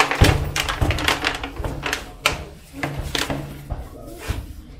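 A string of irregular knocks and thumps over a low steady hum.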